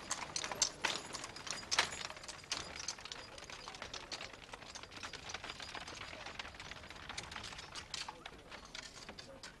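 Horse-drawn carriage moving along a street: an irregular clatter of hooves mixed with people's footsteps, loudest in the first two seconds.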